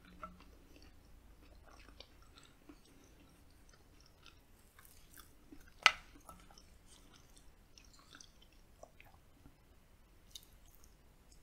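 Close-miked chewing of a mouthful of food, with soft wet mouth clicks. About six seconds in comes a single sharp clack, the wooden spoon knocking against the glass plate as it scoops rice.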